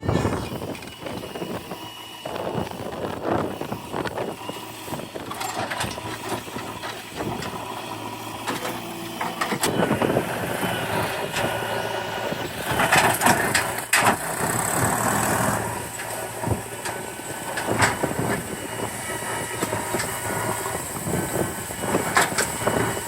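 Diesel engine of a JCB 3DX backhoe loader running steadily while it works, with irregular metallic clanks and knocks, most of them clustered about two-thirds of the way through.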